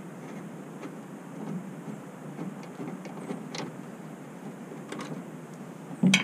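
A Torx screwdriver turning out the screws of a pickup truck's taillight housing: faint scattered metal clicks and scrapes over a steady low background, with a sharper click near the end.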